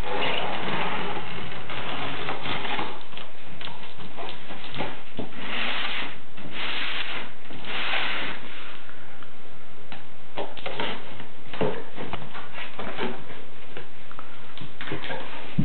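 Cardboard shipping carton being opened by hand: packing tape scraped and slit, the box slid and turned, and its flaps pulled open. Dense rubbing and scraping in the first half, including three longer hissing strokes, give way to scattered taps and knocks.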